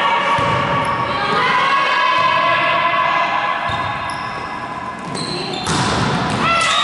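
Volleyball rally in a sports hall: the ball is struck sharply several times, with players' voices calling out between the hits.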